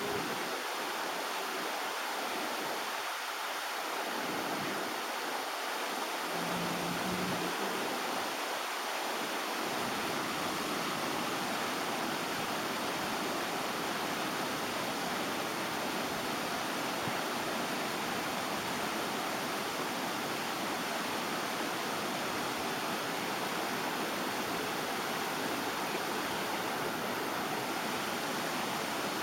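Steady rush of river water cascading over a small drop, an even hiss that runs without change.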